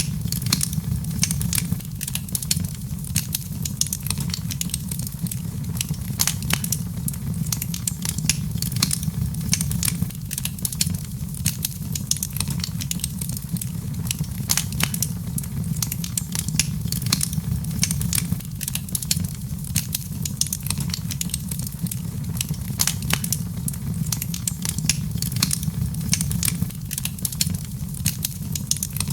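Wood fire crackling in a fireplace: many small, irregular crackles and pops over a steady low rumble.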